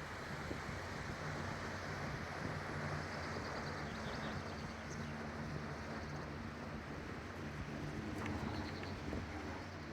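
Cable car cabin running along its cable: a steady rushing noise with a low, even hum.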